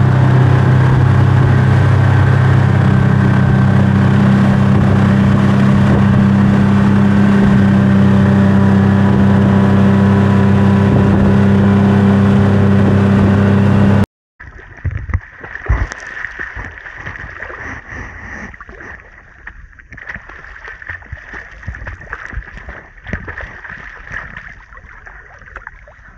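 A motorboat's engine running steadily at towing speed over the rush of its wake; it cuts off abruptly about halfway through. Quieter water lapping and sloshing at the surface follows, with a few splashes as a person swims.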